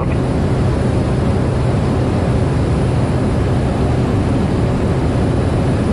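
Steady cockpit drone of a Cessna 208B Grand Caravan's single turboprop engine and propeller in flight, a constant low hum under a broad rushing noise.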